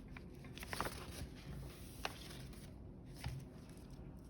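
Faint handling of a glued paper origami model, with three small sharp clicks about a second apart as clips are set on it.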